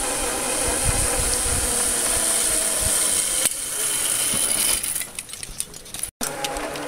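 Zip-line trolley pulleys running fast along the steel cable: a steady high whir that dies down about five seconds in, as the rider reaches the landing.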